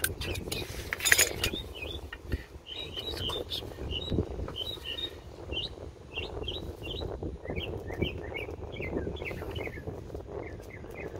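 Small birds chirping in quick, repeated short calls, with sharp metallic clicks and taps of a screwdriver against the parking-brake lever's horseshoe clip on a brake shoe, the loudest clack about a second in.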